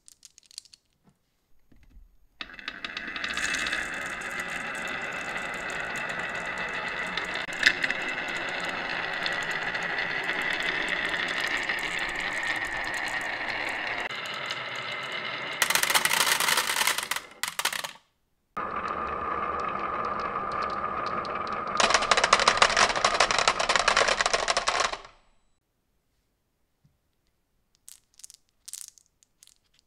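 Glass marbles rolling down a wavy wooden marble-run slope, a steady rolling noise with a faint ringing note, then clattering loudly into a tin toy dump truck about 16 seconds in. A second stretch of rolling ends in another loud clatter into the tin about 22 seconds in.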